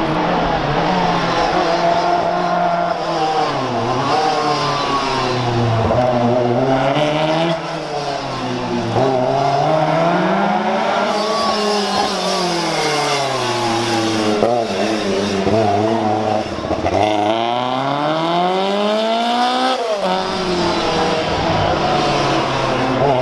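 Lancia 037 Group B rally car's supercharged four-cylinder engine, driven hard, revving up and down over and over as it accelerates and brakes, with a longer climb that drops off sharply near the end. Tyres squeal faintly at times.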